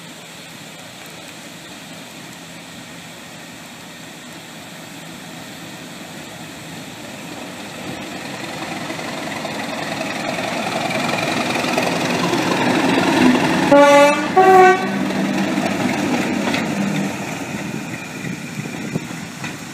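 BR Class 37 diesel-electric locomotive, its English Electric V12 engine growing louder as it approaches and passes. About three-quarters of the way in it gives two short blasts on its two-tone horn, a lower note then a higher one.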